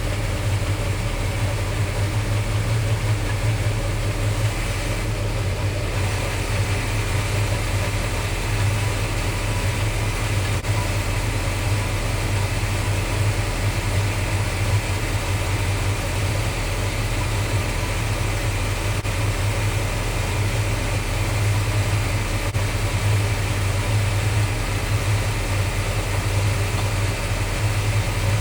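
1975 Chevrolet El Camino's engine idling steadily with the air-conditioning compressor engaged, a constant low hum with no changes in speed.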